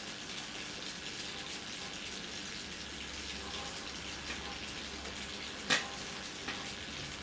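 High-voltage arcs from a microwave oven transformer crackling and sizzling through a plasma TV panel, with scattered ticks and one loud snap a little past halfway. A low hum comes in about three seconds in.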